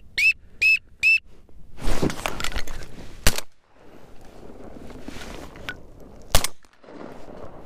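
A few short whistled peeps in the first second, then a shotgun fired at passing ducks: a loud noisy burst about two seconds in, followed by two sharp reports about three seconds apart.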